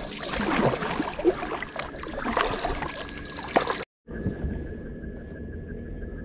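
River water lapping and gurgling in many short, irregular splashes. It cuts off abruptly about four seconds in and gives way to a steadier low rushing noise with a faint thin whine.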